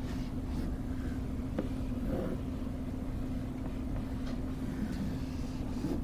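Quiet classroom room tone: a steady low hum over a faint rumble, with a few faint soft ticks.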